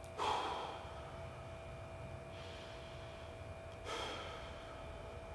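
A man breathing slowly through a held stretch: two audible breaths about four seconds apart, each swelling and fading away.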